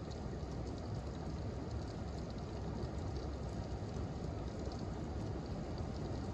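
Steady rain falling in a thunderstorm: an even wash of noise with scattered small drop ticks, and no thunder clap.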